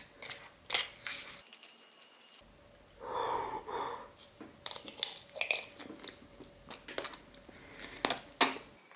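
Close-up eating sounds of spicy instant ramen: slurping and chewing noodles, with scattered short clicks and a louder noisy swell about three seconds in.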